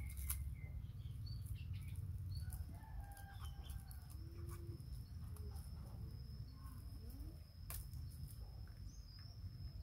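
Chickens clucking and calling now and then in short, scattered calls, with a steady high-pitched insect whine that sets in about three seconds in.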